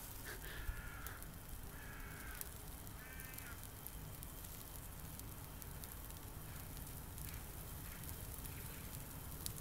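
A crow cawing three times in the first few seconds, over the faint crackle of a fire burning.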